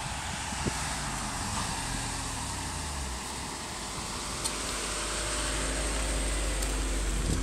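Jeep Grand Cherokee SRT8's 6.1-litre Hemi V8 running at low revs as the SUV drives up and rolls past close by, growing steadily louder; the engine note dips slightly early on, then holds steady.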